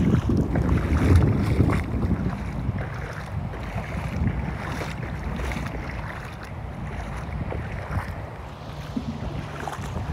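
Wading through shallow flood water: footsteps sloshing and splashing, with wind rumbling on the microphone. It is loudest in the first couple of seconds, then eases.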